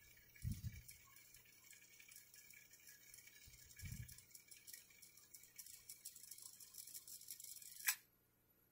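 National SS-9000 cassette deck rewinding a tape with a faint high whir, with two dull low thumps about half a second and four seconds in. Near the end there is a sharp click as the tape runs out and the whir stops. The rewind key stays down, because the deck has no auto-stop for fast wind.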